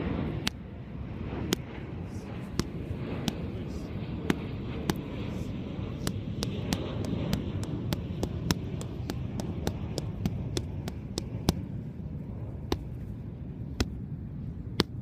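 Boxing gloves smacking into focus mitts during pad work, sharp slaps in quick combinations, about two a second, over a steady low background rumble.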